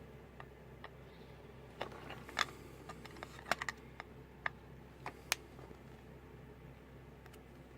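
About a dozen small, irregular clicks and taps from handling a cheap analog multimeter's plastic case while trying to snap its cover back into place. Most fall between two and five and a half seconds in.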